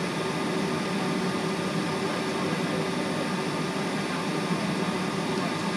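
Steady cabin noise inside a Boeing 757 airliner while taxiing: engines at idle and the cabin air system give an even hum and hiss with a few faint steady tones.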